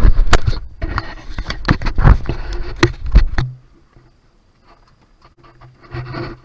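Camera handling noise as the camera is put into its box: rapid knocks, clicks and scrapes against the microphone that stop about three and a half seconds in. After that comes a muffled quiet with a low steady hum.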